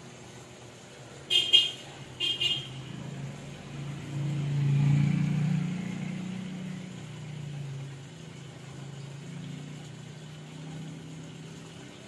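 Two short horn toots, about a second and a half and two and a half seconds in, followed by a low rumble that swells and slowly fades over several seconds, like a vehicle going past.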